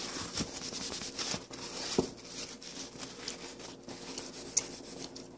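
Paper napkin rustling and crinkling as it is handled and crumpled close to the microphone, with a sharper click about two seconds in.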